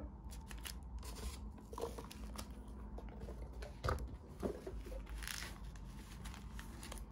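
Faint rustling and crinkling of packaging as sealed trading card packs are handled and sorted out of a box, with a couple of louder clicks about four seconds in.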